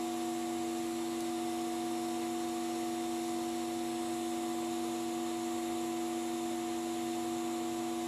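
Ellman radiofrequency surgical unit sounding its steady electronic tone while the fine wire electrode is switched on and ablating eyelid skin: several pitches held without change.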